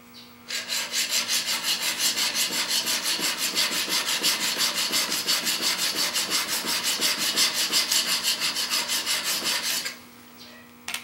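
A steel woodworking chisel clamped in a sharpening jig is scrubbed rapidly back and forth on an extra-coarse DMT diamond plate. It makes a rhythmic gritty rasping of several even strokes a second, which stops about ten seconds in. The stone is grinding the chisel's back flat.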